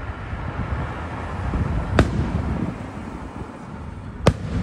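Aerial firework shells bursting: two sharp bangs about two seconds apart over a continuous low rumble.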